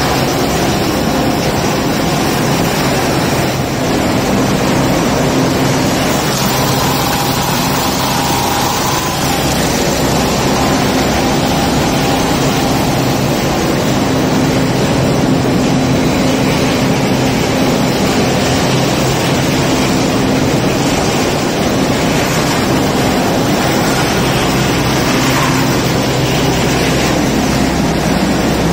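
A textile-waste opening line running: a row of rag-tearing and fibre-opening machines shredding cloth waste. It makes a loud, steady mechanical din with a low hum underneath.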